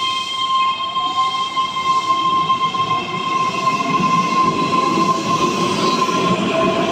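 Keihan 7000-series electric commuter train pulling out and accelerating past: a steady high whine from its traction equipment, joined by faint rising tones, fades about five seconds in while the rumble of the cars and wheels on the rails grows louder.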